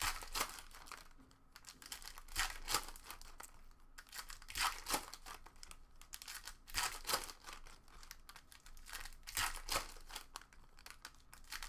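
Foil trading-card pack wrappers being torn open and crinkled by hand, in irregular bursts of rustling.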